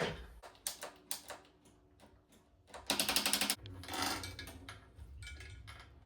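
Bicycle parts and tools: scattered mechanical clicks, with a short, rapid ratcheting rattle about three seconds in.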